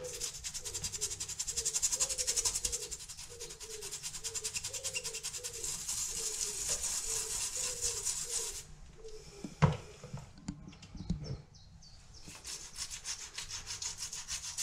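Toothbrush scrubbing oxalic acid solution into an oak beam in fast back-and-forth strokes, working at a stubborn black water-stain mark. The scrubbing stops for a few seconds about two-thirds of the way through, with a single sharp knock, then starts again near the end.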